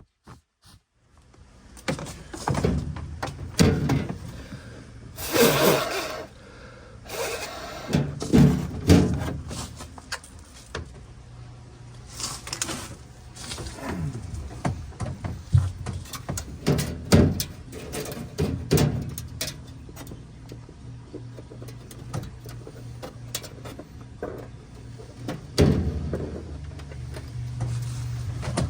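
Hands working inside a refrigerator's freezer compartment: irregular knocks, clunks and rustling of plastic parts and wire being handled.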